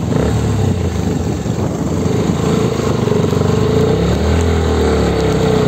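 Bajaj Pulsar NS 125's single-cylinder engine running steadily under load as the bike climbs a rough road. Its note dips and rises slightly about four seconds in.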